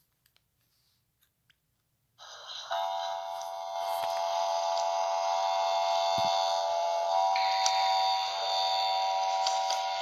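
Near silence, then about two seconds in a loud electronic emergency alert tone starts: several steady pitches held together, changing slightly around seven seconds in.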